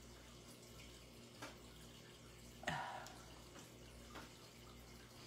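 Quiet room hum with a few soft clicks and a light knock about two and a half seconds in, from an alcohol marker being handled and set down on the craft mat.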